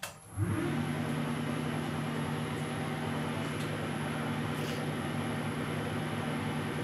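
1972 Weiler Matador SV lathe switched on with a click, its spindle coming up to speed within about half a second and then running steadily at 600 rpm with a constant motor and gear hum.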